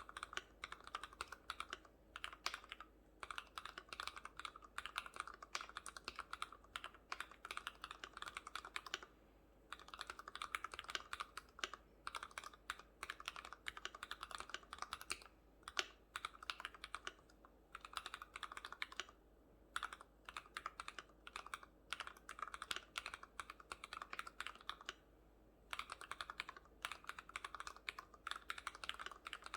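Archon FX2 mechanical keyboard with Cherry MX RGB Red linear switches, spray-lubricated with Super Lube and with foam dampening inside, being typed on quickly. The keystrokes come in dense runs of several seconds, with brief pauses about a second in, around nine seconds in, twice near the middle and again near the end.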